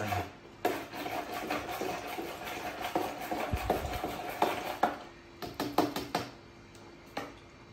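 Long-handled spoon stirring drinks in plastic cups, tapping and scraping against the cup walls in quick, irregular clicks.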